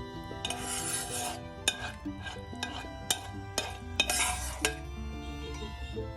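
Spoon scraping and clinking against a dish, two longer scrapes about a second and four seconds in, with scattered clicks between, over steady background music.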